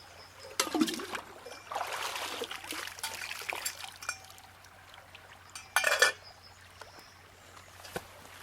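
Liquid being poured and splashing in short spells while a sauce is cooked, with a sharp clatter of cookware about six seconds in.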